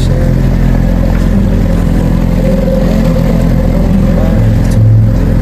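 A motorboat's engine running steadily while the boat moves across the lake, with a brief swell in its sound near the end.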